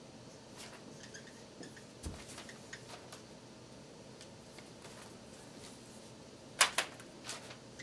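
Dry-erase marker writing on a whiteboard: faint scratching strokes and light taps, with a few sharper clicks of the marker against the board near the end.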